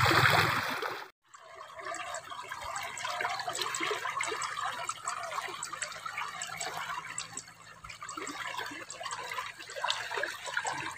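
Water trickling and gurgling in a small concrete irrigation ditch, with faint scattered ticks and drips. About a second in, a louder rush of noise cuts off abruptly and the quieter trickle takes over.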